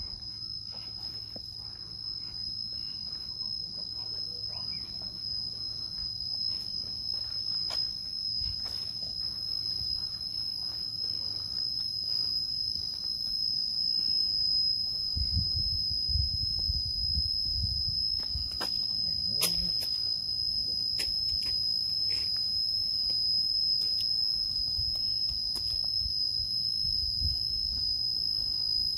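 A steady, high-pitched drone of insects, growing a little louder over the first half, with some low rumbling about halfway through.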